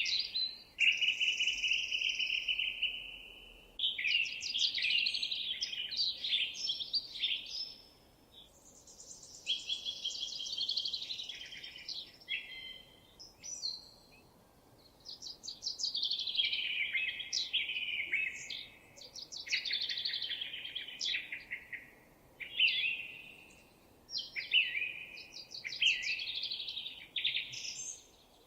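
Songbird singing in phrases of a few seconds each, with short pauses between, over a faint steady background hiss.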